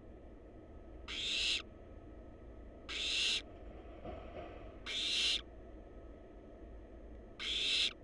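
Barn owl nestlings giving their rasping, snore-like hiss four times, each about half a second long and roughly two seconds apart. This is the hissing call barn owl chicks use to beg for food.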